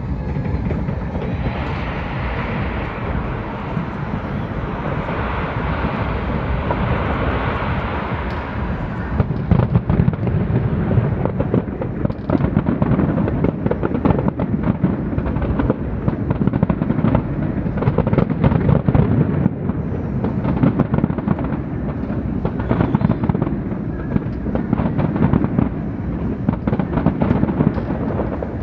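Fireworks display: a rapid, continuous barrage of bangs that gets denser about a third of the way in.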